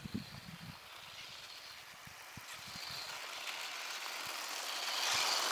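Radio-controlled desert truck driving over a snowy track, its motor and tyres making a hissing whir that grows steadily louder as it approaches, loudest near the end.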